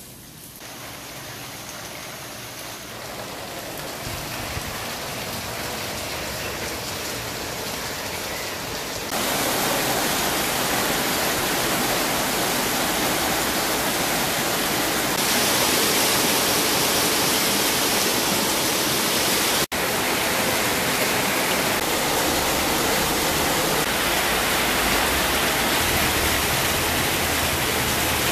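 Heavy monsoon downpour, a steady hiss of rain falling on paving and street. It grows louder over the first few seconds, steps up about nine seconds in, and breaks off for an instant near twenty seconds.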